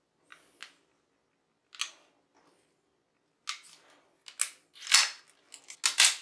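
Sharp metallic clicks and clacks from a SIG Sauer P226 pistol being handled. The locked-back slide is released and slams forward with the loudest clack about five seconds in, and a quick pair of clicks follows just before the end.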